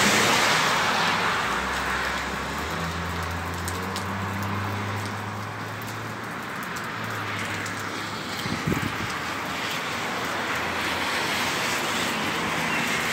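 Cars passing on a wet road: tyres hissing on the wet pavement, loudest at the start and fading as a car goes by, with a low engine hum for a few seconds. A brief knock comes about two-thirds of the way through.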